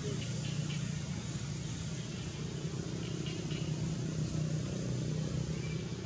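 Steady low background rumble, with a few faint, short high chirps about half a second in and again about three seconds in.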